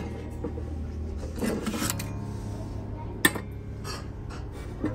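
Background music over the handling of metal pieces on a wooden shelf: a pierced metal trivet scraped into place, then a brass candlestick set down on it with a sharp clink a little past three seconds in.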